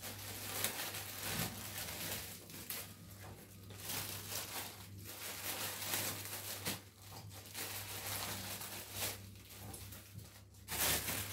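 Thin plastic produce bags crinkling and rustling as green peppers are pulled out of them by hand, in irregular spells with brief pauses.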